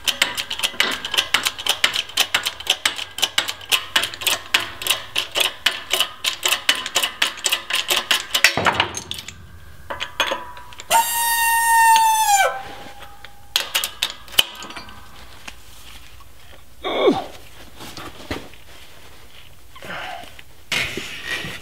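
Shop hydraulic press working on a shock absorber's eye bushing, with rapid clicking at about four to five a second for some eight seconds. A sudden loud crack follows, then a squeal of about a second and a half that drops in pitch as it stops. A few separate knocks come near the end.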